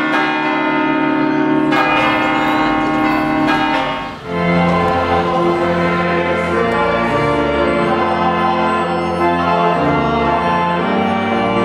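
Pipe organ playing slow, held chords that change about two and four seconds in, then moving on in long sustained notes.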